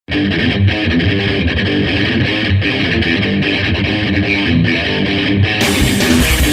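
Guitar-led intro music with a steady beat, starting abruptly. About five and a half seconds in it grows brighter and fuller.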